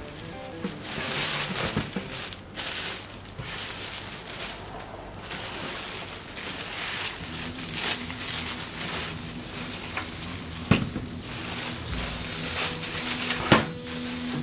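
Thin plastic wrapping bag crinkling and rustling in irregular surges as it is pulled off a small computer case and bunched up, with two sharp knocks in the second half as the case is handled.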